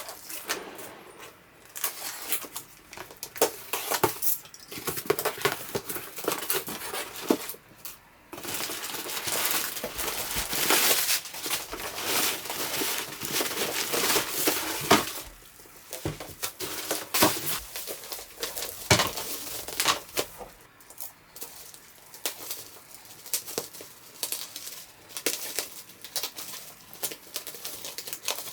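Hands handling things on a workbench: irregular clicks, knocks and light clatter, mixed with stretches of crinkling and rustling like packing material being handled.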